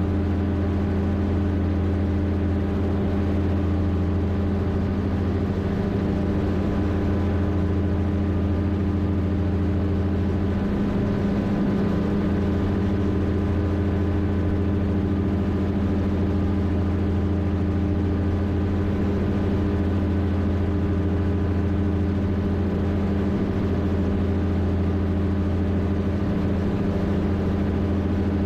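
Rotax 582 two-stroke twin engine of an X'Air microlight running steadily in flight, a constant drone that holds its pitch and loudness.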